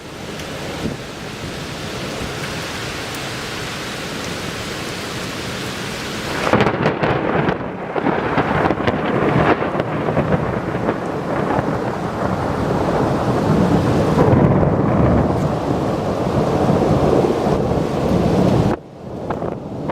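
Steady rain, then about six seconds in a long, loud roll of thunder from a nearby lightning strike, rumbling and crackling for about twelve seconds before it stops abruptly near the end.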